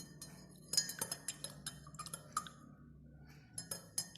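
A spoon stirring a drink in a glass, clinking against the glass several times a second in two runs with a short pause between.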